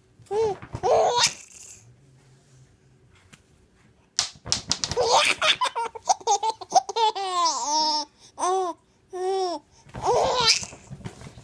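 Baby laughing: a short burst of laughter, a pause of about two seconds, then a long run of giggles and high squeals that rise and fall in short separate bursts.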